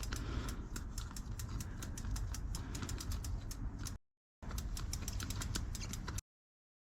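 Rapid, even ticking from a mountain bike's drivetrain as the cranks are turned during chain servicing, about seven or eight clicks a second. The sound drops out completely twice, briefly.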